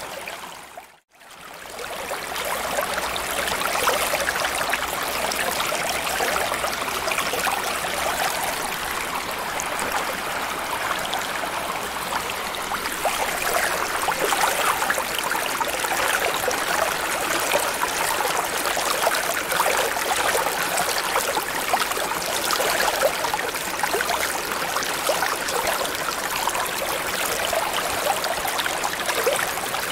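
Ambience track of continuous running, bubbling water, an even rushing with fine crackle throughout. It drops out briefly about a second in and swells back up.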